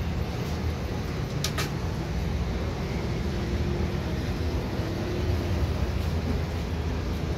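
Andrassay rice-flour discs deep-frying in a large karahi of hot oil, a steady bubbling sizzle over a low rumble of background noise. Two sharp clicks come about one and a half seconds in.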